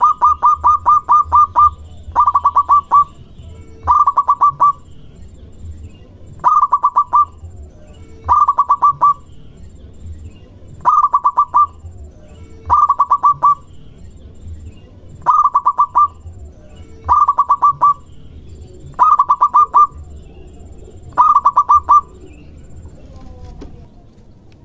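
A male zebra dove (perkutut) singing its courting song: short bursts of rapid staccato coos, each about three-quarters of a second long, repeated about every two seconds and stopping near the end.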